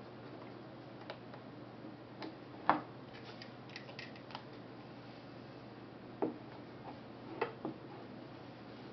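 Small mechanical clicks from a KMZ Zorki 4 rangefinder camera as its controls are worked by hand. There is a scattered handful of sharp clicks, the loudest nearly three seconds in, a run of faint quick ticks just after it, another click about six seconds in and a close pair near the end.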